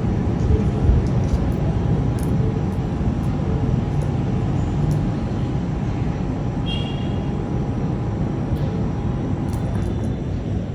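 Low, steady rumble of a thunderstorm, easing slightly toward the end, with a faint steady hum and a short high chirp about two-thirds of the way in.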